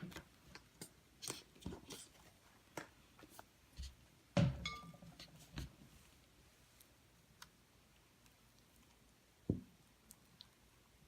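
Hands squishing and kneading slime as lotion is worked in: soft sticky clicks and pops scattered throughout, with two louder knocks, one about four seconds in and one near nine and a half seconds.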